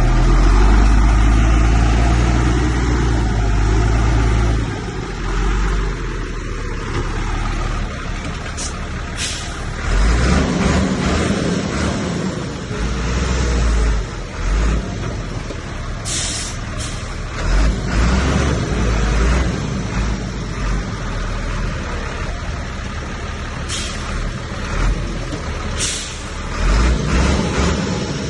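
Heavy diesel engines of a bulldozer and dump trucks working, a low rumble that rises and falls with load. Several short hisses come through over it.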